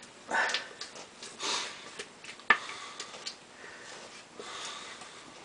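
Spatula scraping thick energy-bar batter out of a metal stand-mixer bowl into loaf pans in a few short scrapes and swishes, with one sharp knock about two and a half seconds in.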